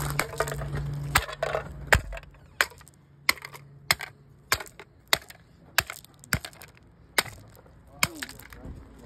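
A shoe crunching down on loose gravel in a steady rhythm, about a dozen times, roughly one every two-thirds of a second.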